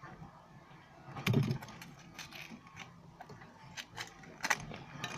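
Scissors cutting and crinkling tinfoil wrapped around a Play-Doh ball: scattered clicks and crackles, with a louder knock about a second in.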